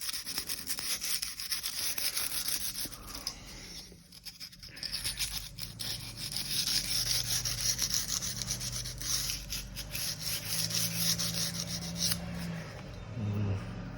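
Abrasive rubbing over the steel of a chef's knife clamped in a guided sharpening system: quick strokes of a stone or sandpaper, with a short pause about four seconds in.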